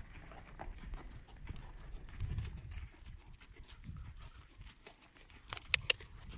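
A horse walking on sand arena footing: soft, irregular hoof thuds, with two sharp clicks near the end.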